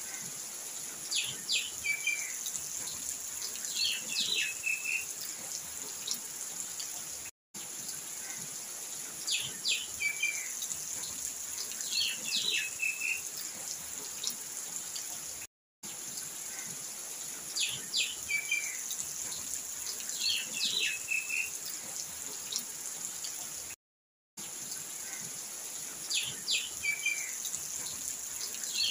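Looped ambient birdsong: two short groups of bird chirps over a steady high hiss, repeating the same way about every eight seconds, with a brief cut to silence between repeats.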